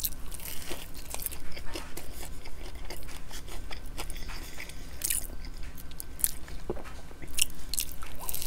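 Close-miked eating of fried chicken glazed in sticky sweet and sour sauce: the crispy coating crunching and crackling irregularly as it is torn apart, bitten and chewed.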